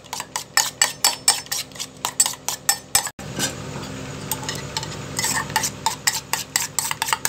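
A spoon beating eggs with chopped onion, tomato and green chilli in a steel bowl, clinking against the metal about five times a second. The clinking breaks off briefly just after three seconds, leaving a soft hiss, then starts again.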